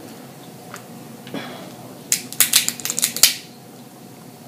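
Crab legs being eaten at close range: a quick run of sharp, crackly clicks lasting about a second, near the middle, with a faint click and a soft rustle before it.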